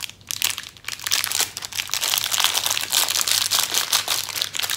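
Clear plastic bag of jelly beans crinkling as it is handled, a dense run of rapid crackles.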